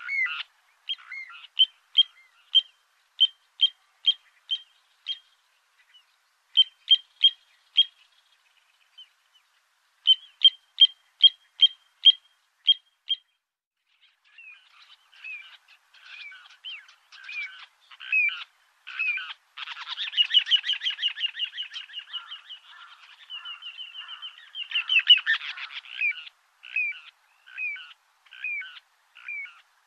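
Little ringed plover calling: runs of short, evenly spaced high piping notes, about two a second, broken by pauses. About twenty seconds in comes a rapid trill lasting some six seconds, followed by more single notes.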